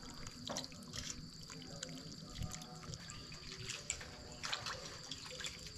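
Water sloshing and dripping in a stainless-steel bowl as hands squeeze and rinse shredded vegetable strips, with small scattered splashes.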